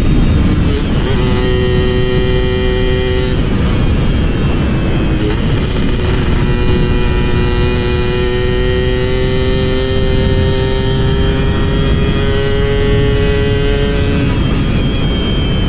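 Two-stroke motorcycle engine running under way. Its pitch shifts a few times, then climbs slowly over a long stretch as the bike gathers speed, changing again near the end.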